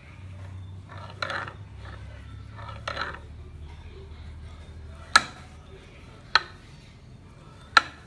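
Crankshaft and connecting rod of a Villiers two-stroke engine turned by hand inside the bare aluminium crankcase, the rod and crank bearings turning freely. There are soft scraping rustles, then three sharp metallic clicks a little over a second apart.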